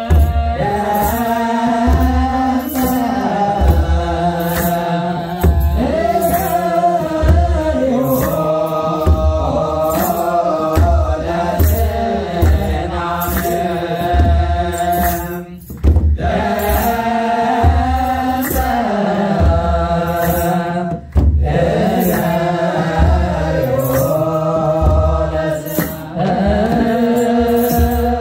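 Eritrean church chant: voices singing a slow chant with long, sliding notes over a steady drum beat. The singing breaks off briefly twice.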